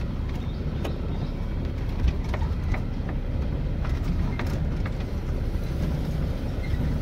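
Safari jeep engine running slowly at low revs, a steady low rumble, with scattered light clicks.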